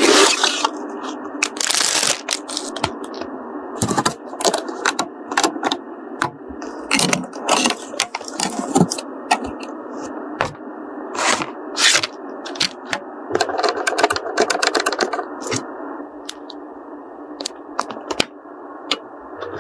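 Many irregular sharp clicks, cracks and scrapes of computer parts being handled and fitted, over a steady background hiss.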